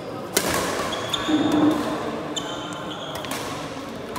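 Badminton rackets striking the shuttlecock in a doubles rally: a sharp hit about half a second in and lighter hits around three seconds in and near the end. Between the hits, shoes squeak on the court floor, and a short shout comes about a second and a half in.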